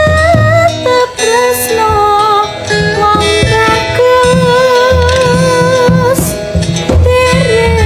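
Live campursari ensemble music: a wavering melody line with vibrato over repeated low kendang drum strokes, with plucked strings in the mix.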